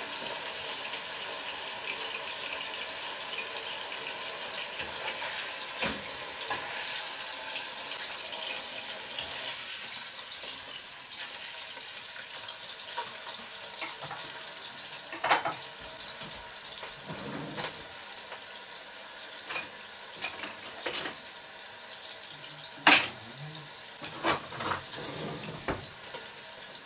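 Braising steak browning in hot lard in a big pot: a steady sizzle with scattered pops and knocks, the loudest about 23 seconds in.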